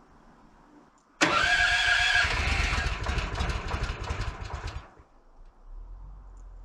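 The sawmill's small gas engine starts up: it comes in suddenly and loud about a second in, runs hard for about three and a half seconds, then drops away and settles into a low, steady idle near the end.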